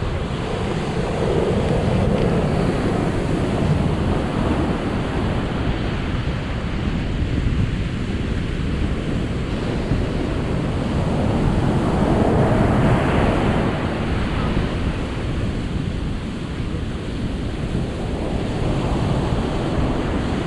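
Ocean surf washing in steadily, with wind buffeting the microphone; the rush swells up twice, about two seconds in and again about halfway through.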